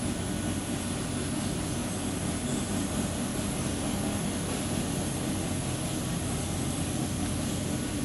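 Steady industrial machinery hum: a low drone with a few even tones under a constant rushing noise, with no change.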